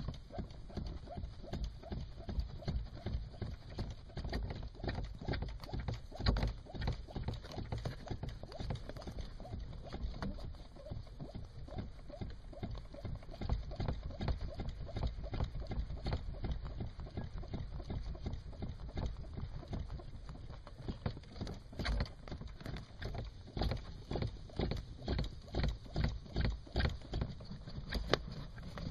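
Sandals knocking and clacking against a car's rubber-padded pedals as the pedals are pumped: a run of quick, irregular knocks that falls into a more regular beat near the end.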